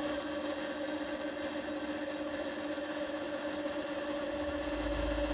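Home-built mini mill's drill spindle running steadily at a set 900 rpm: an even hum with a steady whine above it. A low rumble joins near the end as the quill lever is pulled to start drilling.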